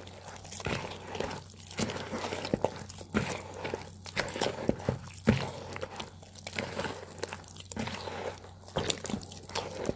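A spoon stirring thick, sticky flour batter in a bowl: repeated wet squelching strokes, about one a second. The batter is being beaten smooth before it is left to rise.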